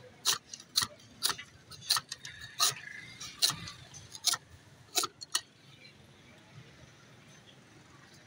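A hand cleaver chopping sugarcane stalks into bite-size pieces: about ten sharp chops, roughly one every half second, stopping a little past five seconds in.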